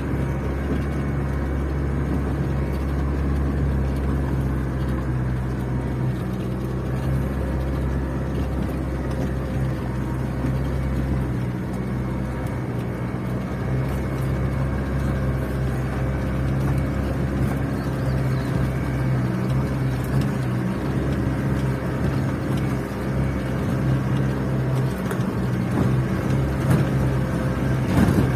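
Land Rover Defender's diesel engine running as it drives up a rough dirt track, heard from inside the cabin: a steady low hum whose deepest note drops away about eleven seconds in.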